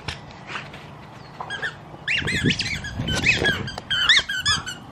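A dog chewing a squeaky toy, setting off a quick run of short, high squeaks that starts about a second and a half in.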